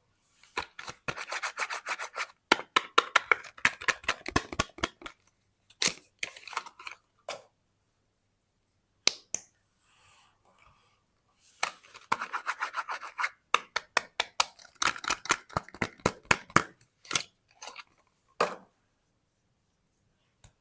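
Close-miked unwrapping of soap packaging: two long runs of rapid crinkling and crackling, with single sharp clicks and taps in between.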